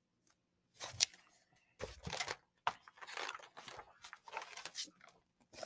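Paper pages of a picture book rustling and crinkling as they are handled and turned, in a string of short, irregular papery bursts starting about a second in.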